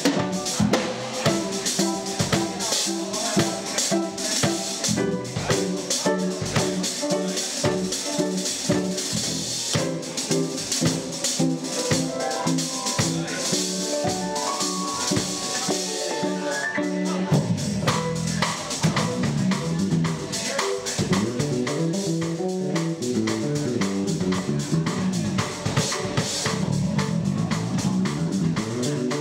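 Live band music: an electric bass guitar plays busy, fast lines over a drum kit with cymbals. About halfway through the bass climbs in a quick rising run, then drops back to lower notes.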